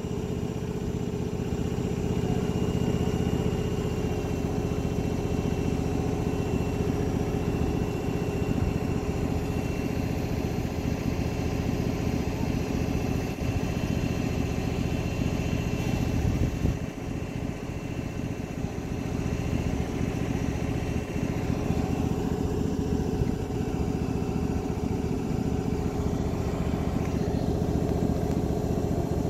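Engine of a ride-on miniature train running steadily, a continuous even hum.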